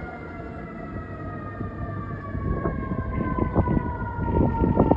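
Emergency sirens of a responding fire truck and ambulance: one long tone slowly falling in pitch, with heavy vehicle rumble and knocks growing louder as the apparatus comes closer.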